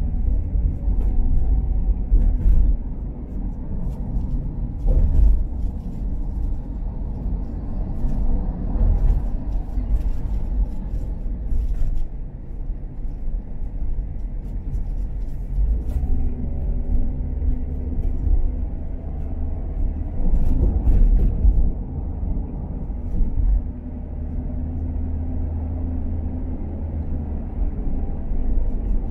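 Car driving, with a steady low rumble of engine and road noise. Under it runs an engine hum that shifts in pitch now and then, and a few faint clicks.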